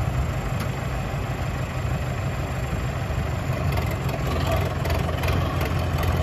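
Diesel engines of two Mahindra tractors, an Arjun and a Yuvo 585, running steadily with a deep, low sound, getting a little louder about four seconds in.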